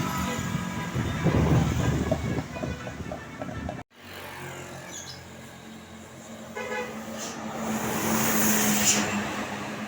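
Tourist bus's multi-tone Basuri telolet horn sounding over bus engine and traffic noise. The sound breaks off sharply about four seconds in. A brief horn blast follows near seven seconds, while a vehicle's engine drone swells and then fades.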